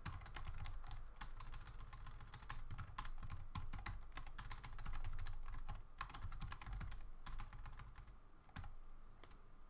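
Typing on a computer keyboard: fast runs of keystrokes that thin out near the end.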